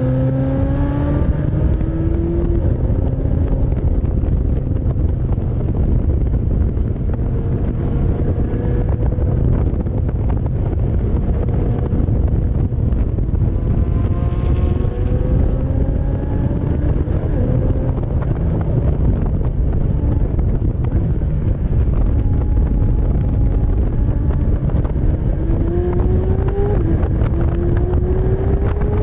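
McLaren Senna's twin-turbo V8 pulling up through the revs several times, with sudden drops in pitch at the upshifts. Heavy wind buffeting on the exterior-mounted microphone runs underneath.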